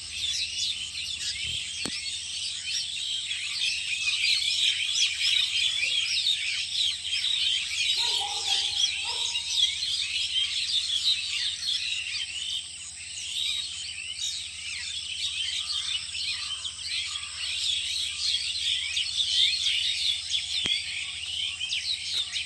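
Many small birds chirping and twittering at once in a dense, continuous chorus.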